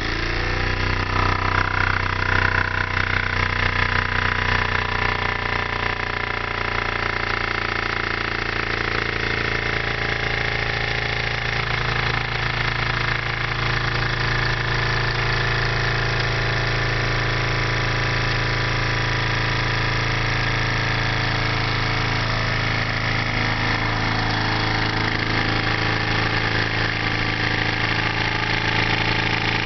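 Homemade beer-can Stirling engine running at about 1,650 RPM, its crank and flywheel making a steady mechanical hum. The pitch rises over the first few seconds as it spins up after starting, then holds steady.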